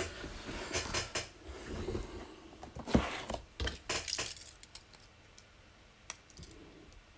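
A shrink-wrapped cardboard trading-card box being slid across a table and handled: a run of light knocks, taps and rustles that thins out to a few faint clicks after about five seconds.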